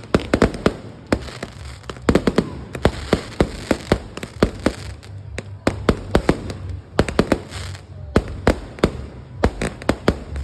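Fireworks display: a rapid, irregular series of sharp bangs and pops, coming in clusters several times a second, with a short lull about two-thirds of the way through.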